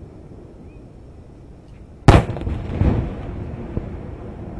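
A firework shell bursting over the sea with one sharp, loud bang about two seconds in, followed by a long rumbling tail that swells again briefly.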